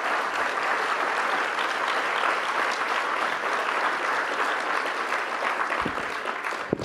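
An audience applauding steadily, the clapping starting to die down near the end.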